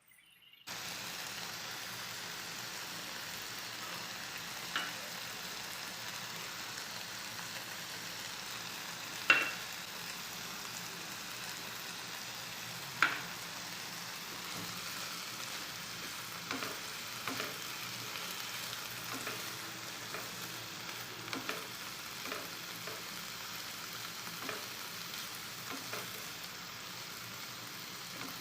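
Food sizzling steadily in a hot frying pan, stirred, with a utensil clicking against the pan now and then; two sharper knocks stand out near the middle.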